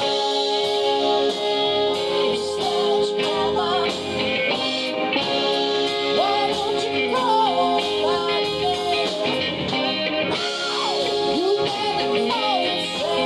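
Music: a song with a sung vocal line that slides between notes over guitar accompaniment, in a bluesy rock style.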